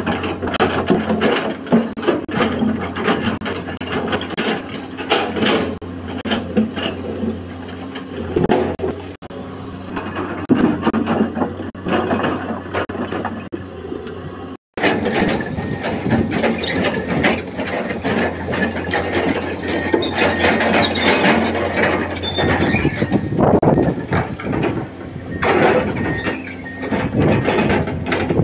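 Komatsu PC220 hydraulic excavator running at work, its diesel engine humming steadily under irregular knocks and clatters of the steel bucket moving rocks for a rockfill. The sound drops out for a moment about halfway.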